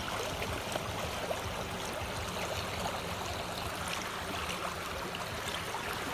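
Fast, rain-swollen creek water rushing steadily.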